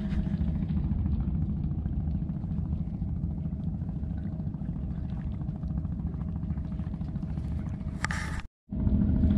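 Wind buffeting an action camera's microphone over open water: a steady low rumble, cut off by a brief dropout to silence near the end.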